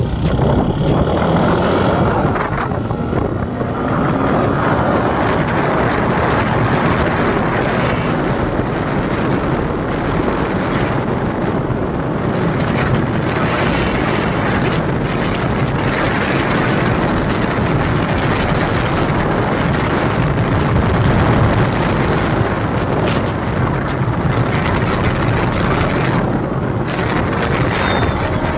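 Motorcycle on the move: a steady rush of wind over the microphone with the engine running underneath.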